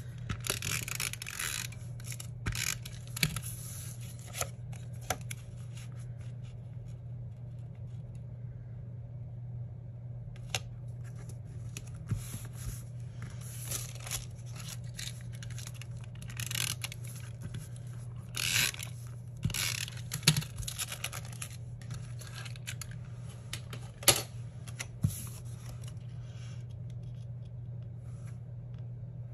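Paper being handled: a tape runner scraping adhesive onto scrapbook paper, with paper and wax paper crinkling and pieces being smoothed down in short, irregular bursts and a few sharp clicks. A steady low hum runs underneath.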